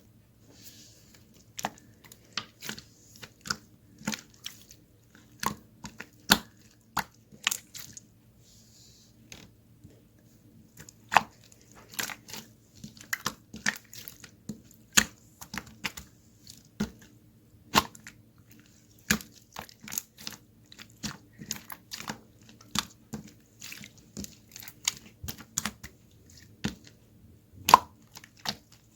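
A long run of sharp, irregular crunching clicks, two or three a second, over a low steady hum.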